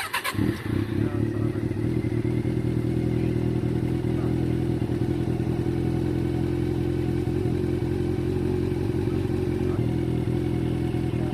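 Honda CB400 Version S inline-four engine with its stock exhaust catching with a brief clatter right at the start, then idling steadily.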